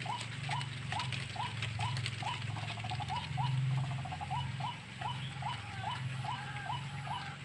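White-breasted waterhen calling: a monotonous series of short, upward-hooked notes, about two a second, with a steady low hum underneath.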